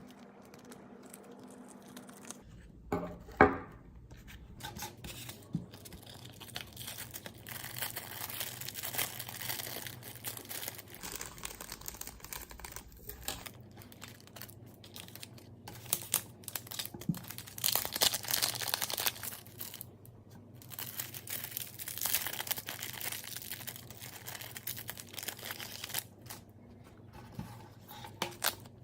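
Plastic packaging being torn open and crinkled by hand in irregular rustling bursts, with a sharp knock about three seconds in.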